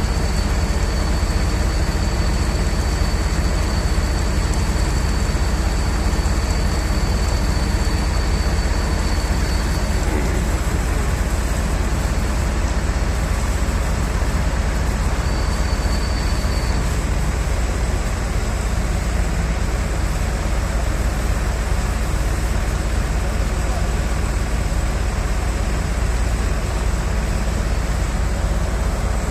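Heavy diesel truck engine of a concrete boom pump running steadily, with a thin high whine that stops about ten seconds in and briefly returns a few seconds later.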